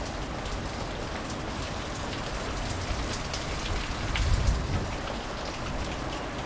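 Steady hurricane squall rain falling, with scattered drops pattering on nearby surfaces. A gust of wind rumbles on the microphone about four seconds in.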